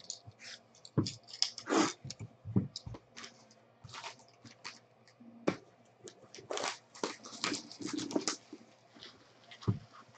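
Hands handling a sealed cardboard trading-card box and stripping off its outer wrapper: an irregular string of short rustles, taps and knocks, with a few low thumps as the box is set down against the table.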